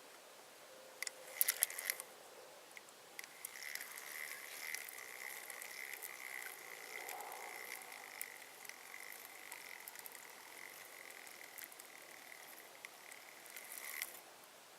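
Fishing reel being cranked to retrieve a lure. A few sharp clicks come near the start, then a steady whir of the reel's gears runs for about ten seconds and ends with a click.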